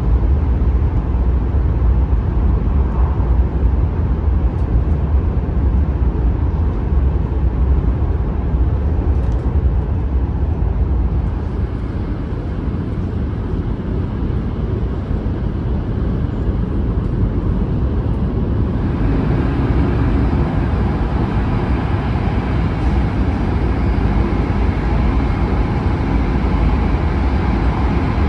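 Running noise of a Shinkansen bullet train at speed, heard from inside the passenger car: a steady, loud low rumble. About two-thirds of the way through it gains more hiss.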